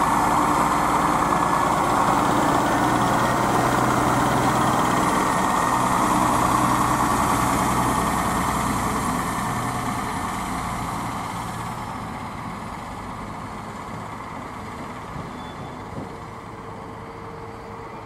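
Diesel engine of a yellow rail maintenance railcar running with a steady hum as the railcar moves off along the track, fading away from about eight seconds in as it draws into the distance.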